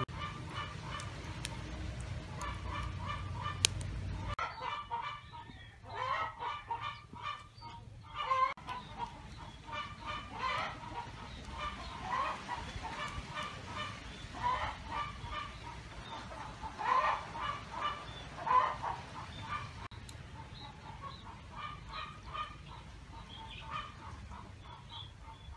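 Domestic fowl calling over and over in short honking and clucking notes, the loudest calls a little past the middle.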